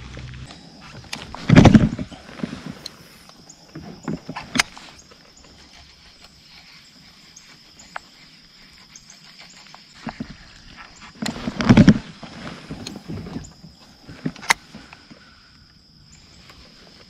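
Two casts with a baitcasting rod and reel, each a short loud whoosh, about ten seconds apart, with scattered sharp clicks of the reel and tackle in between.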